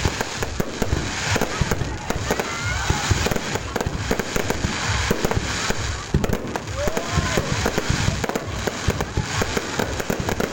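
Fireworks going off in a dense, continuous barrage of rapid crackling pops and bangs with no pause.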